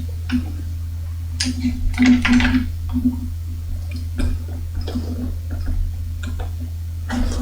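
Soldering a wire onto a printed circuit board: scattered small ticks, scrapes and short hissy rustles from the work, over a steady low hum.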